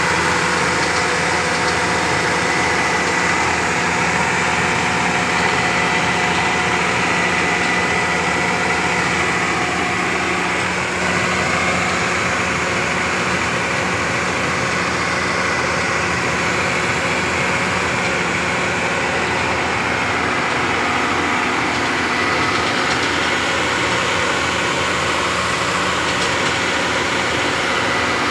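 Heavy construction machinery's engine running steadily, with a steady high-pitched whine over the engine noise.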